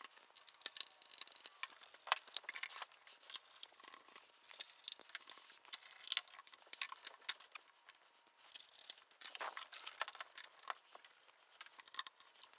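Hand screwdriver and screws working on a Casio CZ-1 synthesizer's case during reassembly: irregular clicks, scrapes and small metallic clinks, with knocks of the case being handled and turned over.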